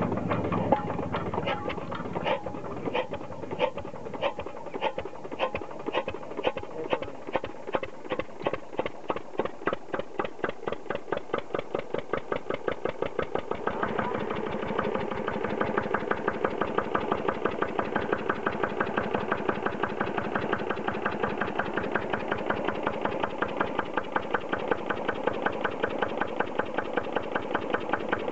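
Hand-cranked single-cylinder stationary diesel engine catching and running, its beats quickening from about three a second as it gathers speed. About halfway through it runs louder and faster with an even beat.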